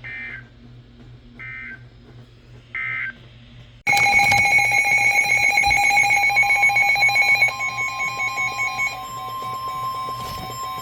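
Emergency Alert System data tones: three short bursts about a second and a half apart, the end-of-message code that closes a warning. Then, about four seconds in, a much louder jumble of overlapping electronic alert tones begins, pulsing rapidly and shifting pitch a few seconds later.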